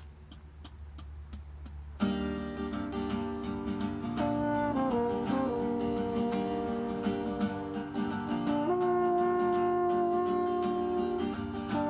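Acoustic guitar strumming starts about two seconds in, after a few soft regular ticks, and a French horn joins with long held notes over the chords: an instrumental intro for horn and guitar.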